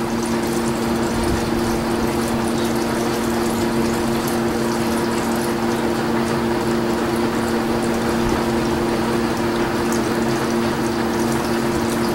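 Fuel-diluted oil draining in a steady stream from a riding mower engine's crankcase into a container, with a steady hum underneath. The crankcase has flooded with gasoline, nearly a gallon of it.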